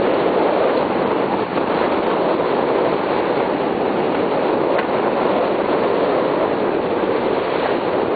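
Steady rushing of wind and water on a trimaran under sail, an even roar with no engine or voices in it.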